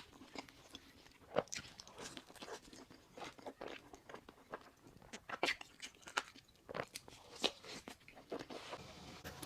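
Close-miked chewing and biting of a burger: irregular crunches and wet mouth clicks.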